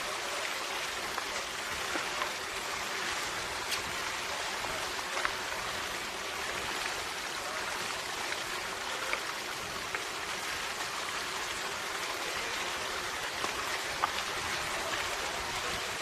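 A steady hiss with scattered faint ticks, like rain or running water.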